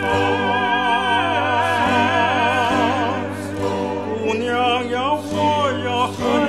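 Background music: operatic singing with a wide vibrato over a sustained accompaniment.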